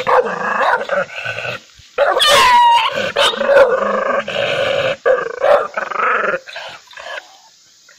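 A dog barking and growling angrily in long, rough volleys, with a high sliding yelp about two seconds in. The sound breaks into shorter bursts near the end and stops for the last second.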